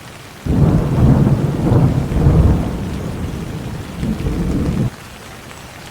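Steady rain with a thunderclap that breaks in about half a second in, rumbles low and heavy for about four seconds, and cuts off abruptly.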